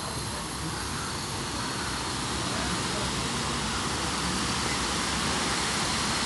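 Afghan kazan pressure cauldron letting off steam through its opened valve: a steady hiss that slowly grows louder as the pressure is released after cooking.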